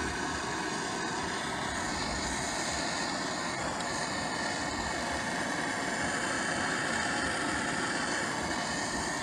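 Handheld blow torch burning with an even, steady hiss as its flame heats an aluminum axle bearing housing, warming it so the housing expands and the bearing comes free.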